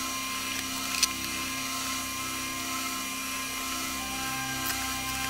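Hard plastic model-kit parts of a Deep Space Nine station being handled and fitted together: one sharp click about a second in and a fainter click near the end, over a steady background hum with a few high whining tones.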